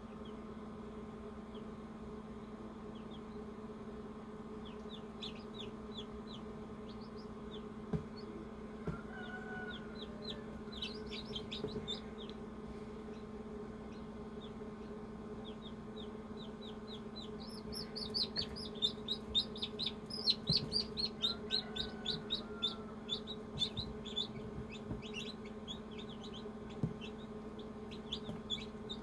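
Newly hatched chicks peeping inside an incubator: short, high, downward-sliding peeps, a few scattered at first, then rapid runs of them about two-thirds of the way in. A steady low hum runs underneath.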